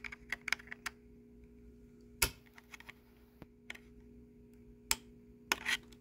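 Small plastic clicks and taps as a LiftMaster 811LMX remote's open case is handled and a small nail is pressed at its tiny program button. There is a quick run of clicks in the first second, then a few scattered clicks, the sharpest about two seconds in, over a faint steady hum.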